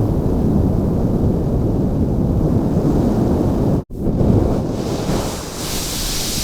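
Flamethrower sound effects: a steady, deep roar of burning fuel that cuts off abruptly about four seconds in, then a second flamethrower blast starts at once, with a hissing spray building in the upper range.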